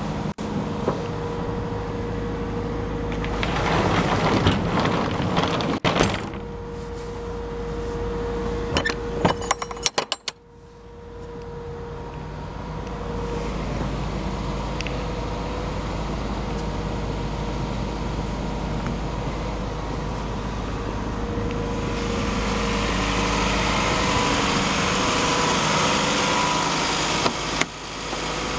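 The 3.0 L four-cylinder diesel of a 2011 Isuzu NPR box truck idling steadily. Handling clatter comes about four to six seconds in, a quick run of sharp knocks about nine to ten seconds in, and the sound grows brighter and louder from about twenty-two seconds in.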